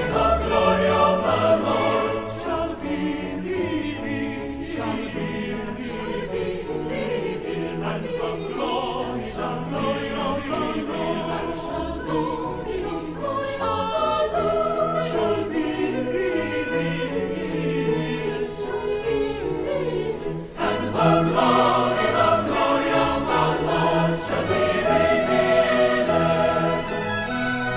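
A choir singing with orchestral accompaniment. It drops briefly about two-thirds of the way through, then comes back louder.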